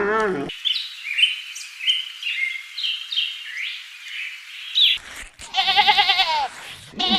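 The end of a goat's bleat, then a few seconds of rapid, high chirping from small birds. Near the end come two long, wavering goat bleats.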